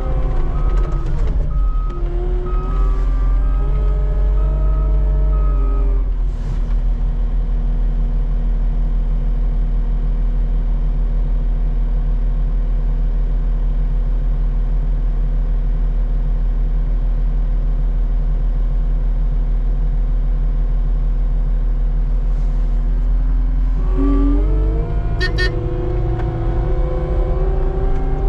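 Skid steer engine running under changing load, with a reversing alarm beeping for the first several seconds. It then holds a steady note for a long stretch and revs up near the end.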